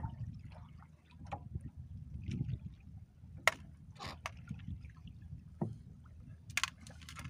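Water lapping against a small boat's hull, with a few short sharp ticks and splashes as a handline is hauled in hand over hand.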